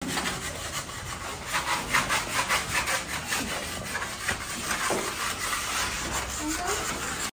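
Hand-held metal floor scraper rasping across a concrete floor in quick, repeated strokes, scraping off dried white spatter.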